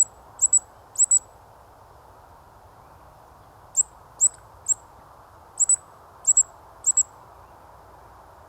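Eurasian woodcocks calling in flight: about nine short, sharp, high squeaks of the roding 'tsiwick' kind, several in quick pairs, in two bouts with a pause of nearly three seconds between. These are the calls of two woodcocks chasing each other.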